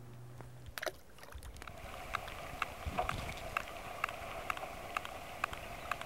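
Distant sperm whale echolocation clicks heard through a hydrophone: faint, evenly spaced clicks, about three a second, over a steady hiss of underwater noise. The hiss and clicks come in about a second and a half in.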